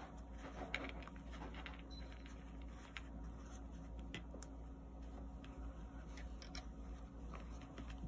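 Faint rustling and soft scratches of fingers pushing polyester fiberfill stuffing into a crocheted yarn piece, with scattered light clicks, over a low steady hum.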